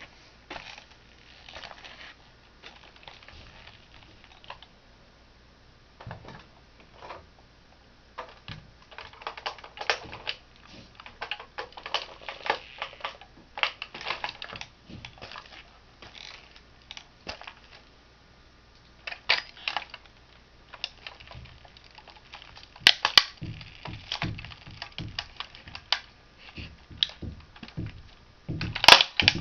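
Toy car being crushed under a shoe: irregular clicks, creaks and crackles, with louder sharp cracks later on, the loudest just before the end.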